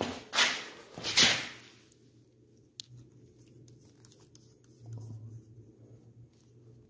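Rustling and scuffing handling noise, about two swishes a second, that dies away about two seconds in. Then faint clicks and rubbing as a chrome valve-stem cap is screwed onto a car tire's valve, over a low steady hum.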